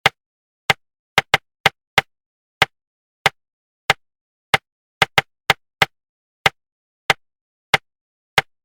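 Sharp, dry taps beaten out as a rhythm pattern for suppressing inner speech while reading. A steady tap comes about every two-thirds of a second, and twice quicker extra taps fill in between the beats.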